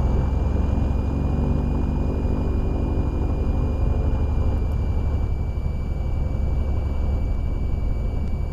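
Van's RV-7's engine and propeller running steadily, heard inside the cockpit through the headset, with a steady high whine over it.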